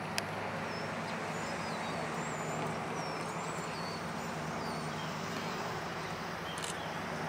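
EMD GP10 diesel locomotives running steadily with a low, even engine drone, while birds chirp in short, gliding calls. A sharp click sounds just after the start.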